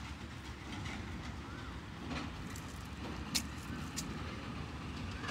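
Wind rumbling on the microphone, with a few faint short chirps and two sharp clicks about three and a half and four seconds in.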